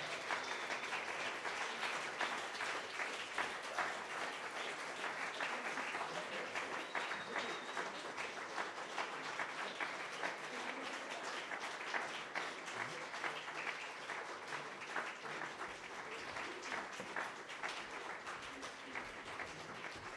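Audience applauding: a dense, steady patter of handclaps that eases slightly toward the end.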